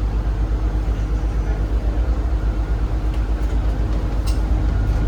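Cabin noise of a Zhongtong hybrid range-extender city bus running: a steady low rumble with a quick pulsing to it, and a few faint ticks a few seconds in.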